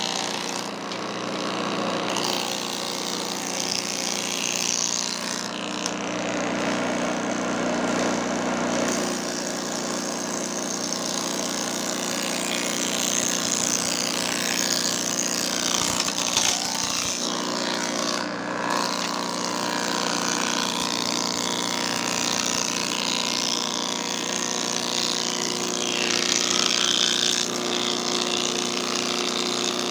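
Wood moulding machine running steadily, its spinning cutter heads milling a grooved profile along a wooden strip: a steady machine hum with the noise of cutting wood on top.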